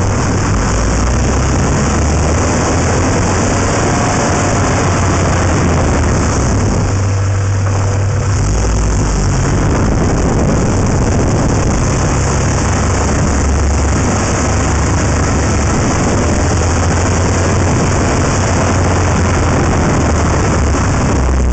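Honda Integra Type R driving, heard from a camera mounted on the outside of the car body: a steady mix of low engine hum with road and air noise, with no sharp events.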